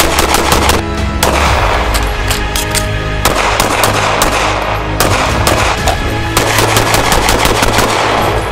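Rapid strings of 9mm pistol shots from a SIG M18, fired in quick succession, over background music.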